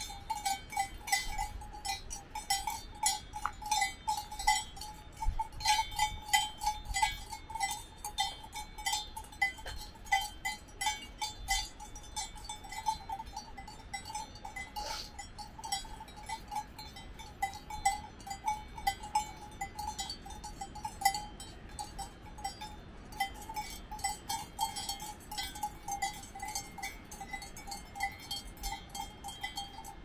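Bells hung on grazing cows clanking irregularly and without pause, each strike ringing on the same clear pitch.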